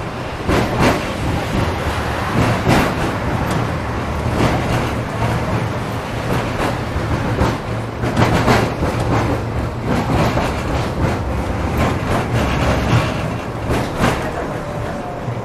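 Tram running along the rails: a steady low rumble with frequent irregular clacks and knocks from the wheels on the track, and a faint falling whine near the end.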